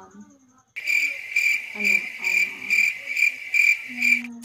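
Cricket chirping loudly in an even pulse, about two and a half chirps a second, starting about a second in and breaking off briefly near the end.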